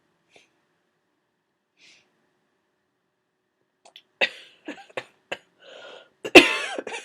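A person with a cold sneezing: a few short, sharp catching breaths and then one loud sneeze near the end.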